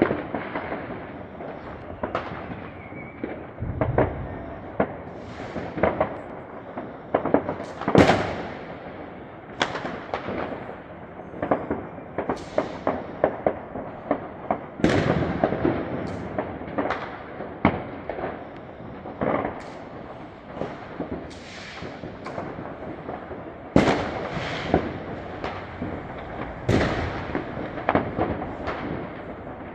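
New Year's Eve fireworks: firecrackers and rockets banging irregularly, some loud and some fainter, one after another over a continuous background of distant crackle.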